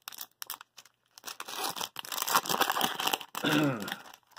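Wrapper of a 2003-04 Topps Traded & Rookies hockey card pack being torn open and crinkled by hand. A few scattered crackles come first, then a long stretch of crinkling starting about a second in.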